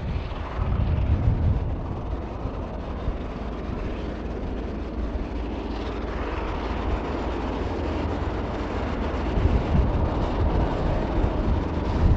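Mainline diesel locomotive hauling a heavy train of oil tank wagons, its engine working under power in a steady low rumble. It grows a little louder near the end as the train comes closer.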